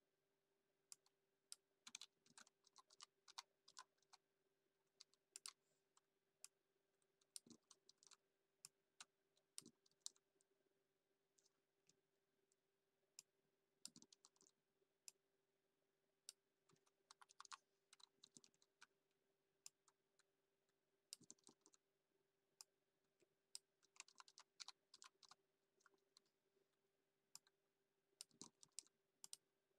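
Faint computer keyboard typing in short, irregular runs of key clicks, over a low steady hum.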